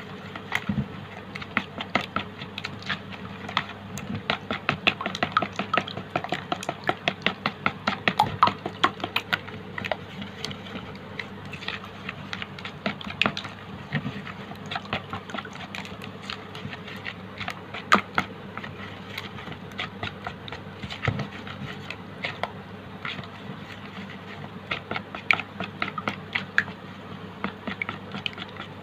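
Silicone spatula stirring a wet egg-and-meal fishing bait mixture in a plastic bowl: quick, irregular scraping clicks and wet squelches, busiest in the first third and sparser after.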